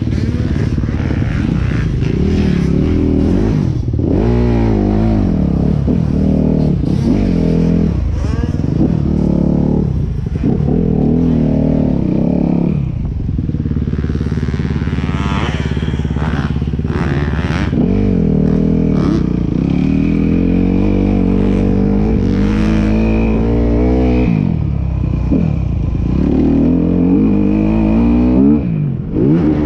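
Motorcycle engine running under way, its pitch rising and falling over and over as it is revved up and eased off through gear changes.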